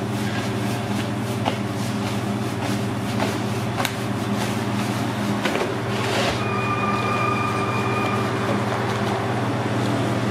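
Steady low hum of pizzeria kitchen machinery with scattered light knocks and clicks. About six seconds in, a steady high tone sounds for about two seconds.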